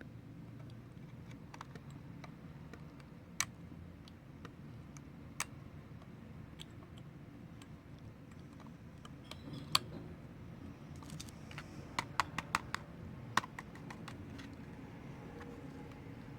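Scattered sharp little clicks of a small metal tool picking at a broken-off headphone plug lodged in an Xbox One controller's headphone jack, a few single clicks and then a quick run of several near the end.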